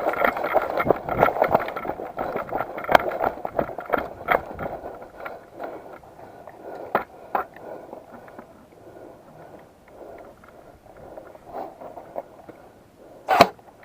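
Rustling and scuffing of an airsoft player moving to cover. It is loudest for the first few seconds and then quieter, with scattered sharp clicks and one louder knock near the end.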